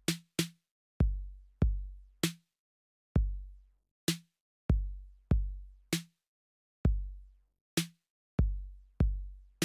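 TR-808 drum machine plugin looping a trap beat at 130 BPM: deep, long-decaying 808 kick booms several times a bar, with a sharp, bright hit about once every two seconds.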